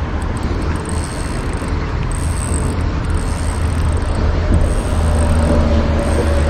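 Steady road traffic noise from the adjacent bridge, mixed with low wind rumble on the microphone, with a faint hum of a passing vehicle coming in about four and a half seconds in.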